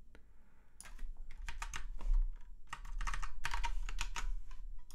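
Typing on a computer keyboard in quick bursts of keystrokes, heard close to the microphone, with a low thump about two seconds in.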